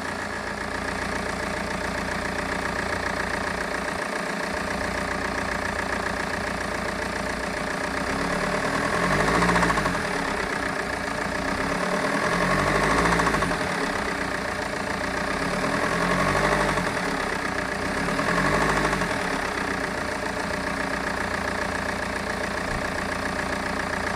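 BMW E46 320d four-cylinder diesel engine idling, revved up and back down four times in the second half. It is making the weird knocking noise the owner hears when driving.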